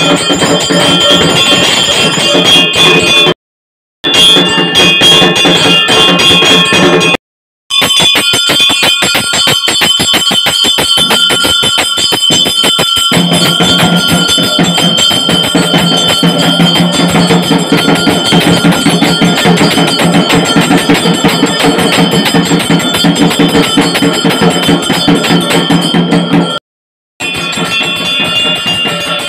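A pooja hand bell rung rapidly and without pause during an aarti, its steady ringing tones sitting over fast, even strikes. The sound cuts to silence three times for a moment, and a deeper steady sound joins about halfway through.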